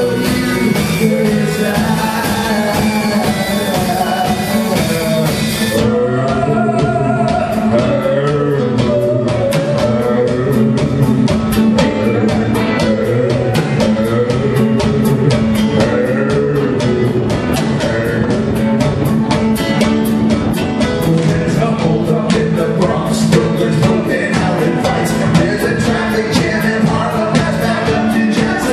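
Live rock band performing a song: sung vocals through hand-held microphones over guitar, bass and a drum kit keeping a steady beat, heard through a concert PA.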